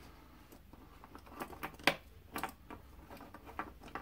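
Parker Jotter ballpoint pens handled and set down on a wooden tabletop: irregular light clicks and taps of the pen barrels and metal caps against the wood and each other, with one sharper knock a little under two seconds in.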